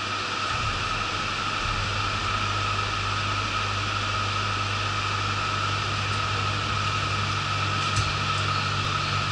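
Yurikamome rubber-tyred automated guideway train standing still, heard from inside its front car: the steady hiss and hum of its air conditioning and onboard equipment, with a steady mid-pitched tone. A low hum comes in about half a second in and firms up after about two seconds.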